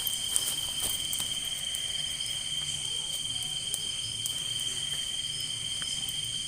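Night insect chorus of crickets: several steady, high, unbroken trilling tones layered together, with a few faint clicks in the first second.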